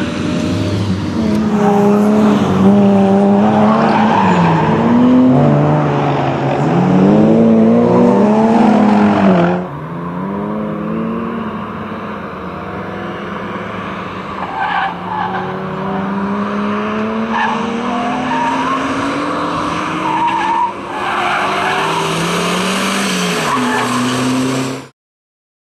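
Ford Focus RS Mk1's turbocharged four-cylinder engine revving hard, its pitch repeatedly climbing and dropping through gear changes and corners, with tyres squealing at times. The sound drops suddenly about ten seconds in, rises again, and cuts off abruptly near the end.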